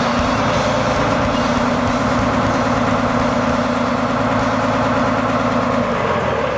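Old fire truck engine running steadily at a constant idle.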